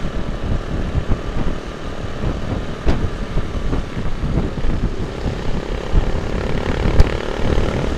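Supermoto motorcycle engine running at road speed, heard with wind rushing over a helmet-mounted camera's microphone. Two sharp knocks stand out, one about three seconds in and a louder one about seven seconds in.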